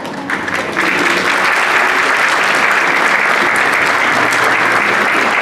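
Congregation applauding, swelling quickly about a second in and holding steady.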